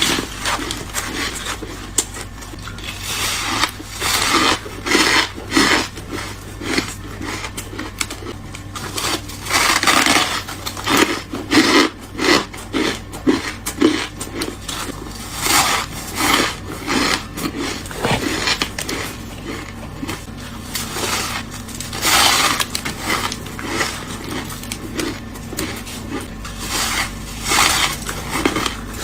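Bites into freezer frost, crunchy and squeaky, coming in many irregular bursts one after another.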